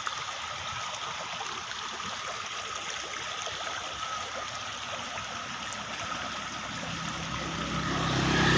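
Steady running water of a small stream trickling. Near the end a motor vehicle's engine comes in and grows louder as it approaches.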